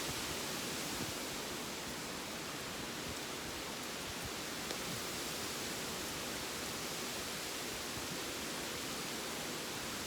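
Steady wind from Hurricane Dorian rushing through tall trees, a continuous rustling hiss.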